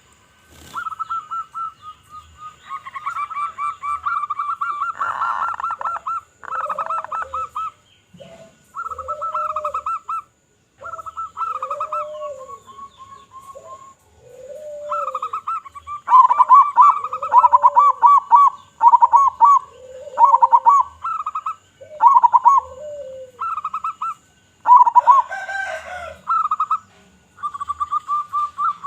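Zebra doves (local perkutut) cooing: repeated phrases of quick staccato coo notes, each with lower drawn-out notes rising and falling, with short pauses between phrases and more than one bird calling at once.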